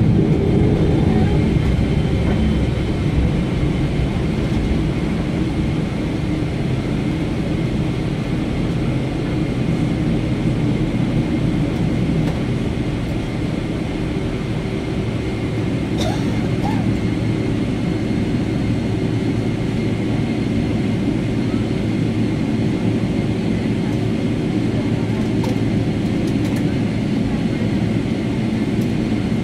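Cabin noise of a Boeing 777-300ER taxiing after landing, heard from a window seat beside its GE90 engine turning at idle: a steady low rumble with a faint steady hum. A brief click sounds about halfway through.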